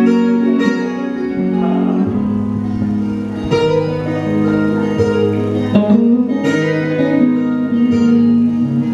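Guitar playing an instrumental passage with no singing: plucked notes ringing over held chords.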